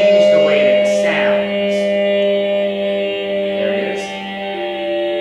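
Electronic computer music of layered, sustained tones over a steady low drone, with a few tones shifting pitch about 4 seconds in. Brief airy swishes come about a second, two seconds and four seconds in.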